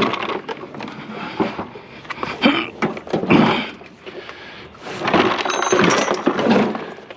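Metal knocks, rattles and scraping from a heavy wheeled scrap item with flat tyres being pushed and wrestled into place.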